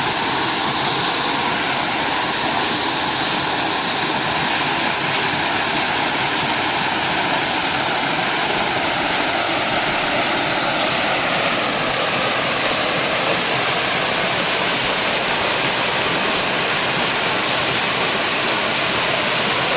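Small waterfall and the fast stream below it, water rushing and splashing in a steady, loud hiss.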